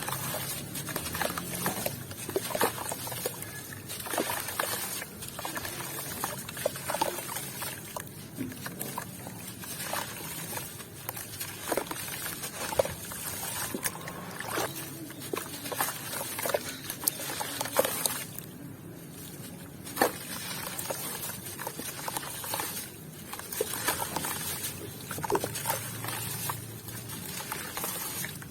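Chunks of hardened white cement with grains, some of them wet, being crushed and crumbled: dense, irregular crunching and crackling, with a short lull a little past halfway and one sharp crack just after it.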